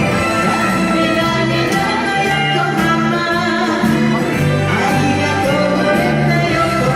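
A Japanese kayōkyoku song, sung by a solo voice over backing music with a steady bass line.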